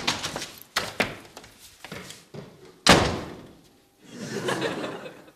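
A couple of sharp knocks, then a door slammed shut hard about three seconds in, the bang dying away over about a second.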